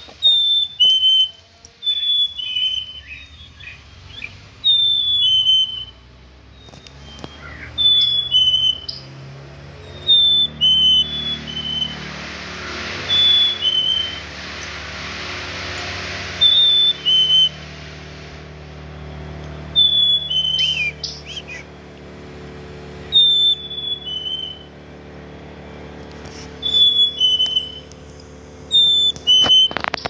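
Black-capped chickadee's two-note 'fee-bee' song: a clear whistle that steps down from a higher note to a lower one, repeated about every two to three seconds. A rushing noise swells and fades midway.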